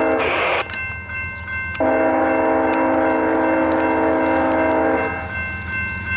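Union Pacific locomotive horn sounding for a grade crossing as the train approaches: a blast cuts off just after the start, then a long blast of about three seconds begins about two seconds in. A steady high electronic crossing bell rings alongside.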